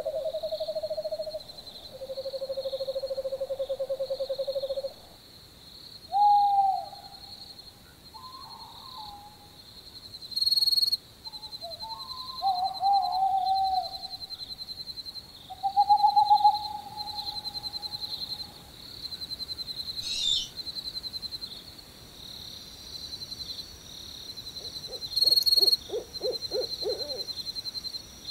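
Spooky haunted-house ambience of owl hoots, held and wavering, over a steady high trill like crickets. Short gliding calls come through the middle, and a fast pulsing burst sounds near the end.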